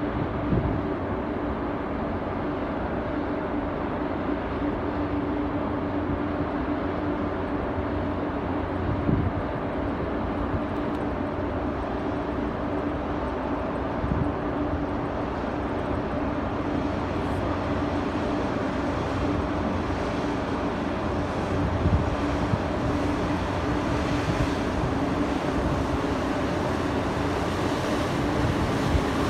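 Steady low drone of a cargo ship's machinery with a constant hum, and wind buffeting the microphone a few times.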